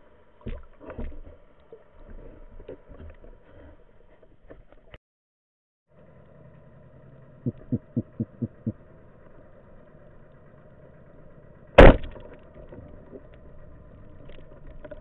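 Speargun fired underwater: one sharp, loud crack about twelve seconds in, over a steady underwater background noise. A quick run of five clicks comes a few seconds before the shot.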